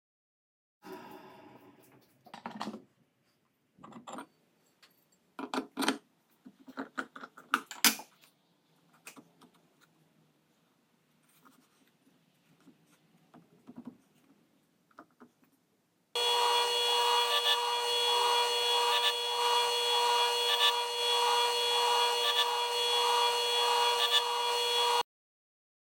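Wooden sharpening jig and a carbide-tipped circular saw blade handled and slid on a cast-iron table saw top: scattered knocks and rubs, the sharpest knocks about six to eight seconds in. After a pause, a table saw whines steadily as it grinds the teeth of the blade held in the jig, with faint repeated pulses as tooth after tooth is ground, then cuts off sharply near the end.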